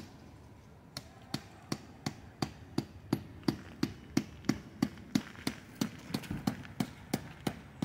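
Tent stake being driven into the ground with a hammer: a steady run of quick strikes, about three a second, resuming after a short pause about a second in.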